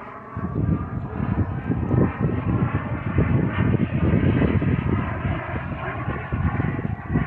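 Radio-controlled model aircraft flying overhead, its engine sound shifting in pitch with rippling tones as it passes. Gusts of wind buffet the microphone with a low, uneven rumble.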